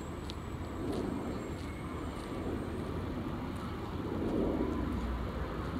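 Steady low outdoor rumble of city background noise, swelling slightly about four seconds in.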